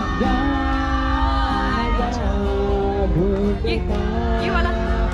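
Live music with a singer singing a Hindi film song, held notes over a steady accompaniment.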